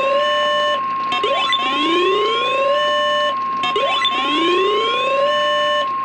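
NOAA Weather Radio warning alert: the steady 1050 Hz warning alarm tone, with a rising whoop siren sweeping up over it about every two and a half seconds. Each sweep holds briefly at the top, then cuts off. It heralds a newly issued severe thunderstorm warning.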